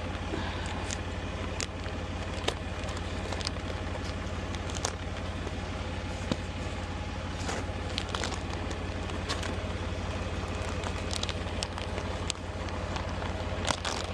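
A vehicle engine idling with a steady low hum under an even hiss, with scattered light clicks and crackles throughout.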